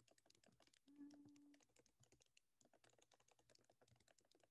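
Faint, rapid clicking of a computer keyboard as an email address is typed, with a brief low hum about a second in.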